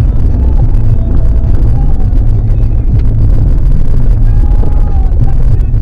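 Vehicle driving slowly, heard from a dashboard camera inside the cabin: a loud, steady low rumble of engine and road noise. A few faint short squeaks sound over it, and a sharp click comes about three seconds in.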